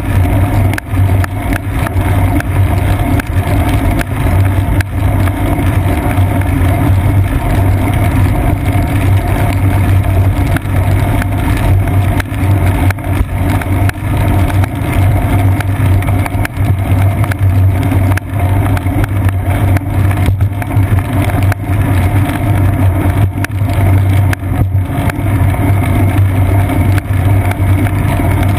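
Road noise picked up by a seat-post-mounted GoPro Hero 2 on a bicycle riding over wet pavement: a steady low hum with frequent small knocks from bumps in the road.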